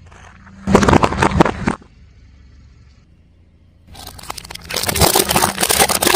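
A car tyre rolling over brittle objects and crushing them: two bursts of loud crackling crunches, the first about a second long and the second, about four seconds in, lasting about two seconds.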